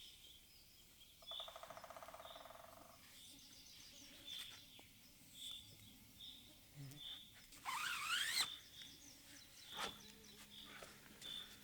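Birds calling in quiet natural surroundings: short high chirps repeat throughout, a quick pulsed trill comes early, and a louder warbling rising call comes about eight seconds in. A couple of sharp clicks follow near the end.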